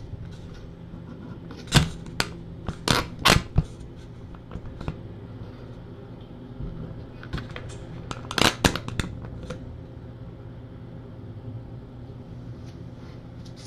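Handling noise as the streaming camera is set down and adjusted: a run of sharp clicks and knocks about two to three seconds in and again about eight seconds in, over a low steady hum.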